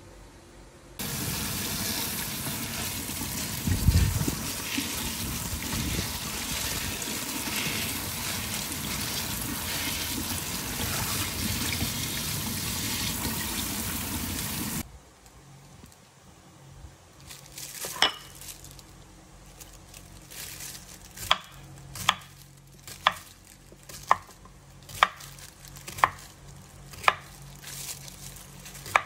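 Tap water running steadily onto a peeled pineapple for about fourteen seconds, then shut off suddenly. After a short pause, a kitchen knife cuts through pineapple and strikes a wooden cutting board about once a second, in sharp clicks.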